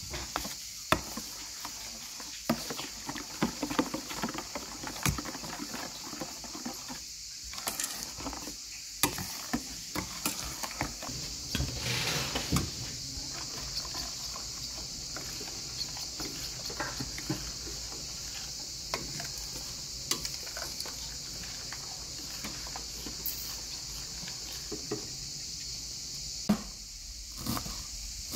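Sauce simmering in a pan, with scattered small pops and spoon clicks over a steady high hiss. Near the end a knife chops herbs on a plastic cutting board in a few sharp strokes.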